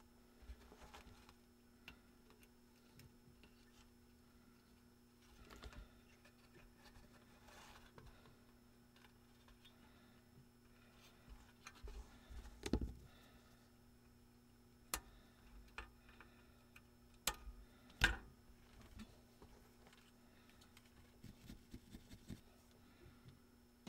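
Faint scattered clicks and taps of small objects being handled, a few sharper ones about halfway through, over a steady low hum.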